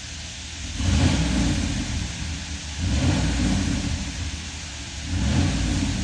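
Dodge Ram 1500's 5.7-litre Hemi V8 revved three times, each rise easing off after a second or two. No ticking is heard: the cold-start ticking has been cured by the repair.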